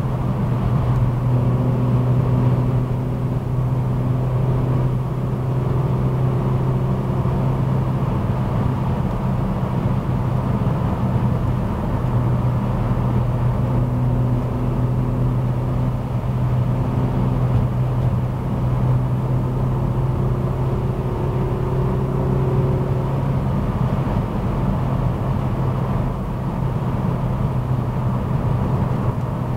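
Ford Escort Mk6's 2.0 Zetec four-cylinder on individual throttle bodies, heard from inside the cabin, running at a steady cruise. Its steady drone sits over tyre and road noise.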